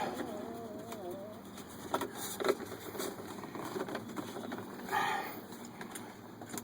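Light clicks and knocks of hand work on the dashboard, two sharp ones about two seconds in, and a short rustling burst near the end, over a steady low hum. A brief wavering tone sounds in the first second.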